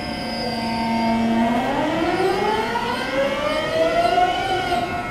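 JR East 209-1000 series electric train's GTO-VVVF inverter whine as it pulls away under power. It holds one steady tone for about a second and a half, then several tones rise together in pitch as the train gathers speed.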